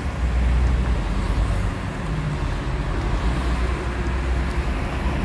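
Road traffic passing on a city street: a steady low rumble of car engines and tyres, loudest in the first second and a half.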